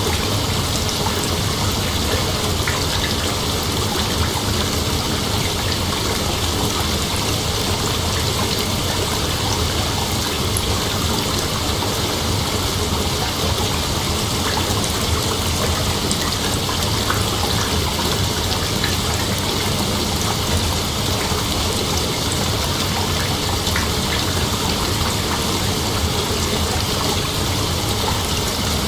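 Steady night ambience of night insects calling together as one dense, even hiss, with no single call standing out.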